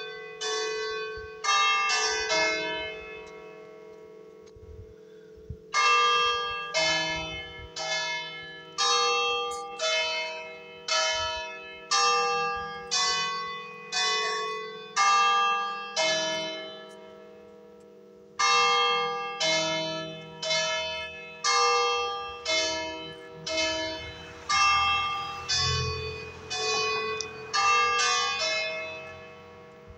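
Three church bells tuned in E-flat, cast in 1909, struck one after another at about one stroke a second, each stroke ringing on. The strokes come in runs of about ten, with two pauses of a few seconds.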